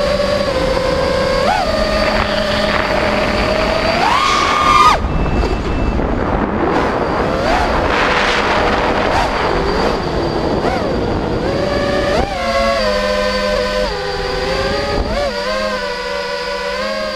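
Brushless motors of a 5-inch FPV racing quadcopter whining. The pitch rises and falls as the throttle changes, with a sharp climb in pitch about four seconds in, over a rush of air noise.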